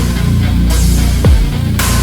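Background electronic music with a heavy beat: deep kick-drum hits that drop in pitch, sustained bass notes and sweeping bursts of hiss.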